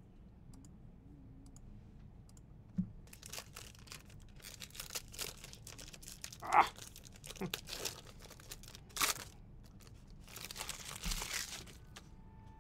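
Foil wrapper of a Panini Black Gold football card pack being torn open and crinkled by hand: a run of short, irregular rips and crinkles that starts about three seconds in and goes on for several seconds.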